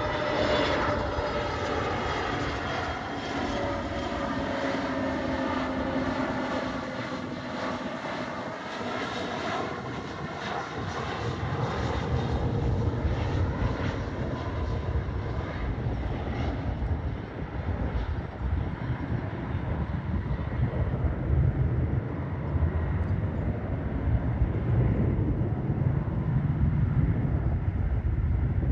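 Arriving Airbus A320neo airliner's jet engines, a whine of several tones slowly falling in pitch, giving way about halfway through to a deeper, rising rumble.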